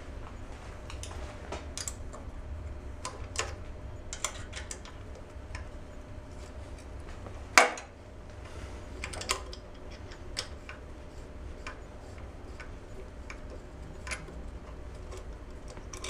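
Scattered metallic clicks and taps of a hand tool and fingers working loose the air cleaner cover on a Kohler K-series lawn tractor engine, with one sharper clack about halfway through, over a low steady hum.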